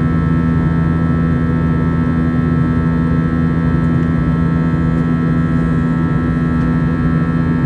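Steady engine drone of an Airbus A321's IAE V2500 turbofans heard from inside the cabin during the climb after takeoff, a constant hum with several steady tones layered over it.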